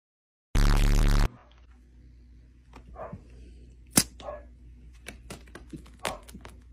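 A short, loud, harsh burst of sound about half a second in. After it come a couple of faint kitten meows and scattered sharp clicks, one louder click at about four seconds.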